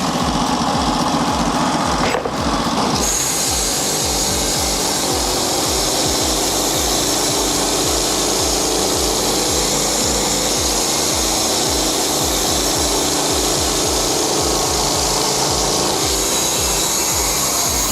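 B1001 portable sawmill running and cutting through an oak log, a steady loud saw and motor noise; a sharper, hissier cutting sound sets in about three seconds in and holds steady.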